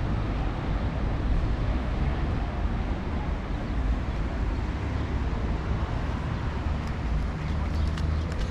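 Outdoor street ambience: a steady low rumble, typical of background road traffic, with a few faint clicks near the end.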